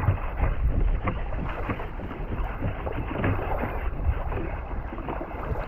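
Choppy seawater slapping and splashing against the hull of a moving pedal-driven fishing kayak, with wind rumbling on the microphone. The slaps come irregularly over a steady rush of water.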